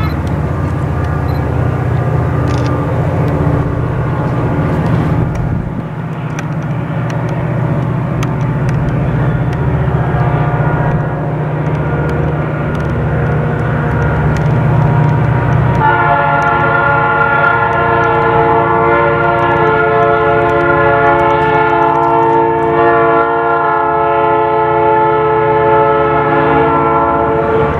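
Diesel locomotives of the Chepe passenger train running with a steady low engine sound; a little over halfway through, the locomotive horn sounds and is held as a long, loud chord for many seconds.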